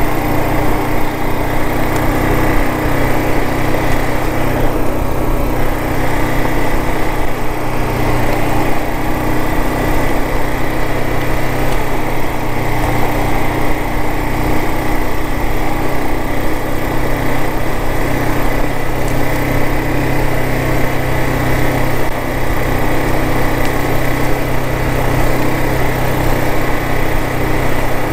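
Kawasaki KLR 650's single-cylinder engine running steadily as the motorcycle is ridden over loose rock, with tyre and ride noise underneath.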